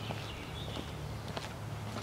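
Footsteps of a person walking, a few scattered soft steps, with faint high chirps in the first second.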